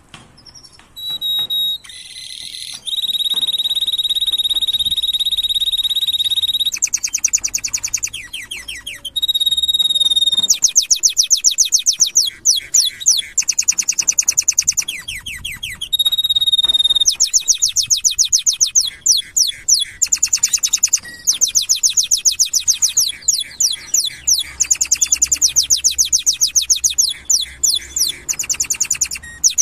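Domestic canary singing a long, loud song of held whistled notes and fast rattling trills, with brief pauses between phrases.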